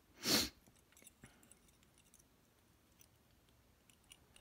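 A short rustling burst about a third of a second in, then faint, scattered small clicks from handling the lock's parts and tools as its pins are pushed out.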